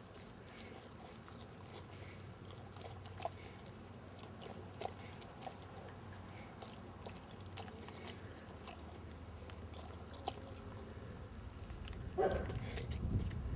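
English Mastiff chewing and biting a raw pork butt, with irregular crunching and tearing clicks. A louder low rumble comes in near the end.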